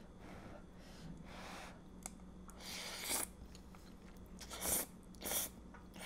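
A person slurping spaghetti carbonara noodles off chopsticks, with several short, loud slurps about three and five seconds in and quieter mouth sounds and chewing between them.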